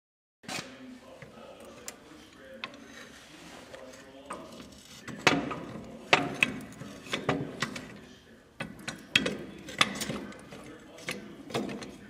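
Metal clanks and rattles as a tractor cultivator's rusty bars and chain are handled and fitted into place, with a string of sharp knocks coming thick from about five seconds in.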